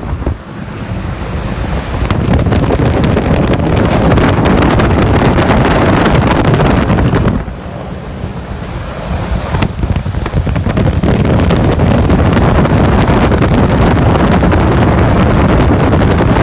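Heavy wind buffeting on the microphone over a Yak aerobatic plane in flight. It eases for a couple of seconds about halfway through.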